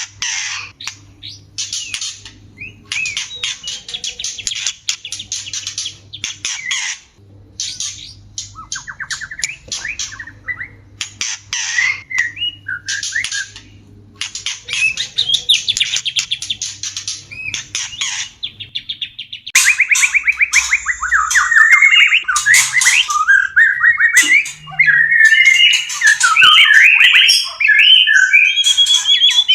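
White-rumped shamas (murai batu) making courtship calls: harsh chattering bursts for the first two-thirds, then, from about two-thirds of the way in, a louder, fast song of rapid trills and whistled phrases.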